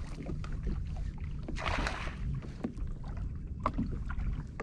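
Water splashing around the kayaks, with one louder splash about a second and a half in and a few light knocks near the end, over a low wind rumble on the microphone.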